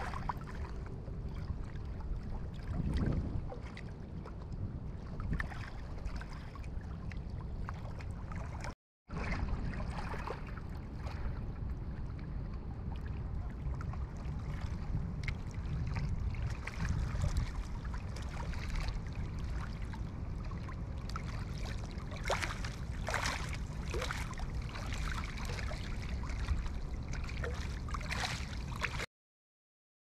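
Steady low rumbling outdoor noise, like wind buffeting a handheld microphone, with scattered short clicks and rustles that come more often in the second half. The sound cuts out for a moment about nine seconds in and again near the end.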